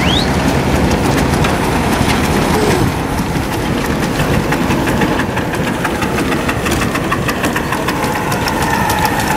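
Antique engine running steadily, a dense fast chugging with many quick, even clicks.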